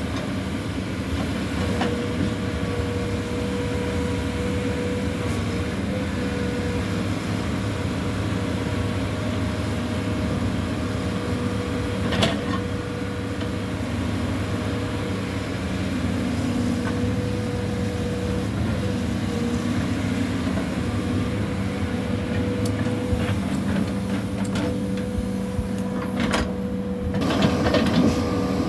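Hitachi crawler excavator's diesel engine running steadily under working load as the bucket digs soil, with a steady high whine over it. A sharp knock about twelve seconds in, and a few more knocks and clatter near the end.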